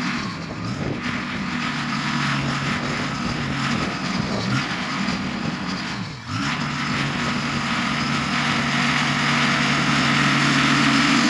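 Diesel engine of heavy earthmoving equipment running steadily at work. Its pitch dips sharply and comes back up about six seconds in.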